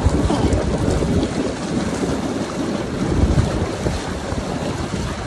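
Hot tub jets churning and splashing the water right beside the microphone, a steady rushing, with wind buffeting the microphone.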